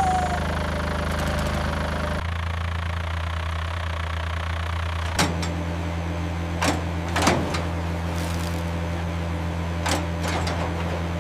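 A cartoon construction machine's motor running with a steady hum that shifts slightly about two seconds in, with several short sharp knocks in the second half.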